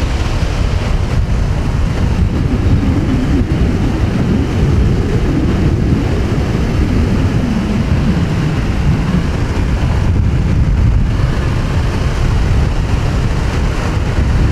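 Small motorcycle running at road speed, about 80 km/h, with the engine note rising and falling. Heavy wind noise on the microphone runs through it.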